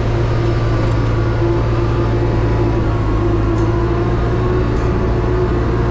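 Delivery truck's diesel engine running steadily while the truck is driven, a low drone with a steady whine above it.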